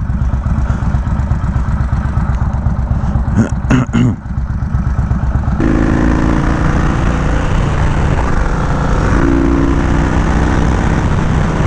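Yamaha Road Star Warrior 1700's V-twin engine running through a very loud aftermarket exhaust at road speed, with wind rush. About four seconds in it dips briefly. A second or so later it comes back fuller and louder as the throttle opens.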